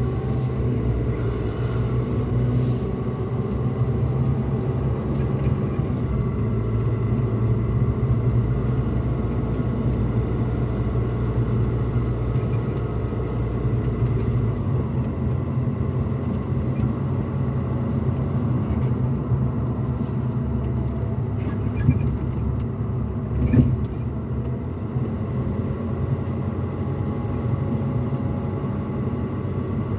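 Pickup truck cabin noise while driving: a steady low rumble of engine and road. A couple of brief knocks come about three-quarters of the way in.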